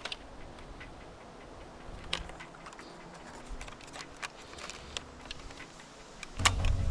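Scattered light clicks and ticks, a second or more apart, over a quiet background. Near the end a louder, fuller sound with a low thump comes in.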